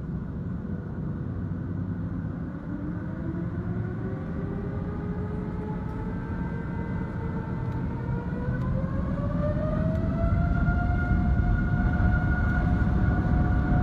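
Airliner's turbofan engines heard from inside the cabin over the wing, a low rumble with a whine that rises in pitch for several seconds and then holds steady as the engines spool up to higher thrust.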